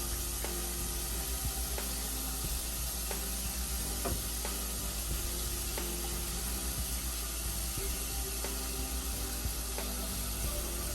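Background music with a light ticking beat over a steady rushing hiss.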